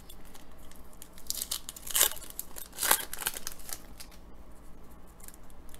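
A foil trading-card pack wrapper being torn open and crinkled, with crackling throughout and two louder rips about two and three seconds in.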